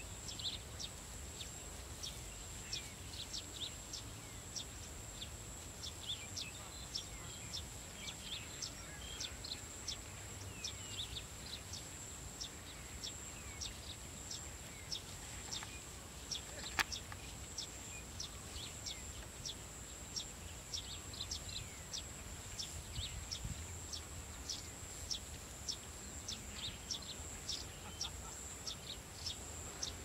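Rural field ambience: small birds chirping, short high downward chirps repeating two or three times a second, over a steady high-pitched whine and a low wind rumble. One sharp click about halfway through.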